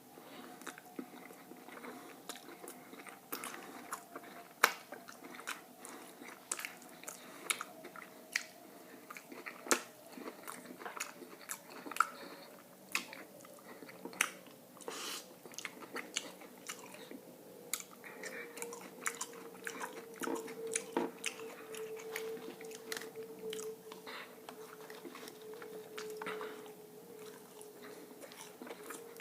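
Close-miked chewing and biting: wet mouth clicks and smacks at an irregular pace, a few sharper than the rest, over a faint steady hum that slowly drops in pitch.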